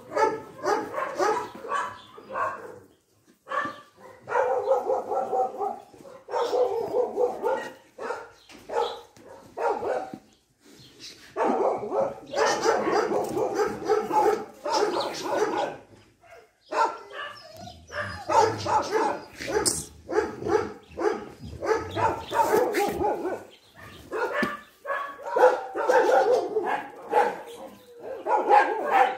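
Dogs barking, yipping and whining in repeated bouts, with short pauses between them.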